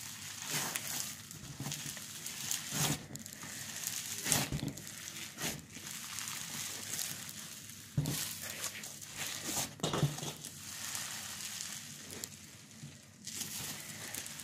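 Snow-fizz cloud slime squeezed and kneaded by hand, giving a dense fine crackle with louder squishes every second or two.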